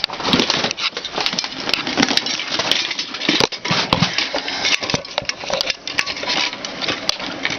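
Clattering handling noise close to the microphone: hard objects being knocked and shifted about, with many sharp clicks and knocks.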